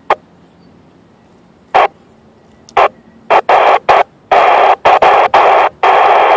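Kenwood TM-261 2-metre FM transceiver on the ISS downlink, its squelch breaking open in short bursts of radio static. The bursts come more often and run longer toward the end until the hiss is nearly continuous.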